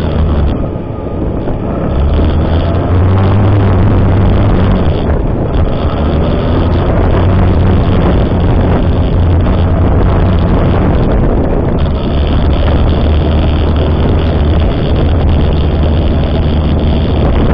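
Honda CB400 motorcycle engine running under way with rushing wind, picked up by a motorcycle dash camera's microphone. The engine note rises and falls a few times.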